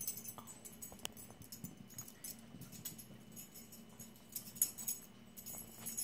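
Small dogs' collar tags jingling faintly and irregularly as the dogs move about, with a few light clicks and a busier patch of jingling near the end.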